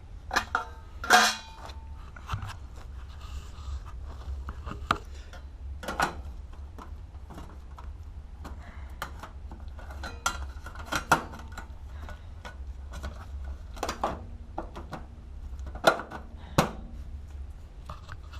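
Scattered metallic clinks and knocks, about a dozen, the loudest about a second in, from tools and metal plumbing parts being handled at a water heater. A steady low hum runs underneath.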